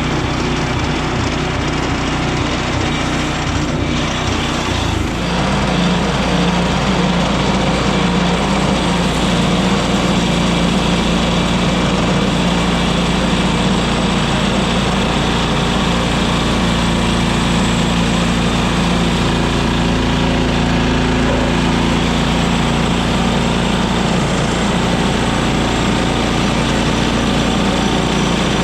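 Frontier OS23 portable bandsaw sawmill running steadily while sawing boards from an ash log. About five seconds in, its engine note shifts and gets a little louder, then holds steady.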